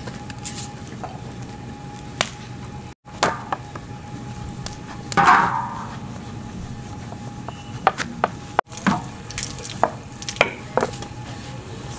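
Rotis cooking on a large iron griddle (loh) over a fire: a steady low background with scattered sharp taps and clicks, and one louder burst about five seconds in.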